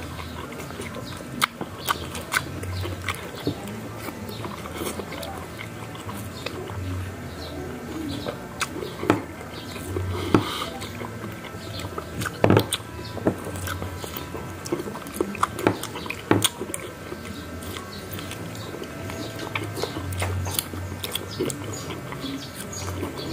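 Close-up mouth sounds of people eating ripe Indian mango: chewing, wet smacks and slurps, heard as irregular sharp clicks.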